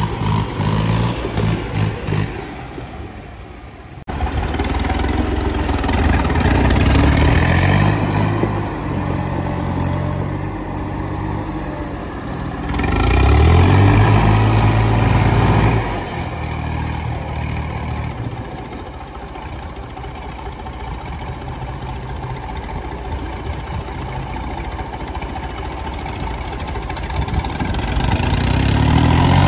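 Diesel tractor engines pulling under heavy load in a tractor tug-of-war, revving up and easing off in swells. The loudest push comes about halfway through and another near the end.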